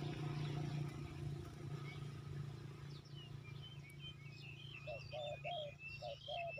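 Birds calling over a steady low hum: thin chirps begin about three seconds in, then a run of short, evenly repeated calls near the end.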